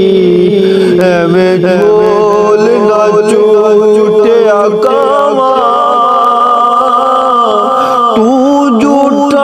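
A man singing a Sufi kalam, drawing out long, wavering, ornamented notes without a break.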